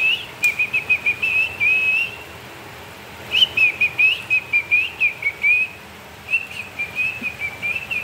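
Rapid, warbling whistling in three runs of about two seconds each, separated by short pauses.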